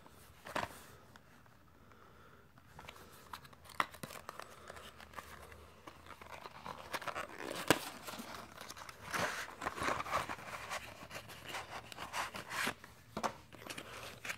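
Product packaging being handled and opened: rustling, crinkling and tearing with scattered clicks, busier in the second half.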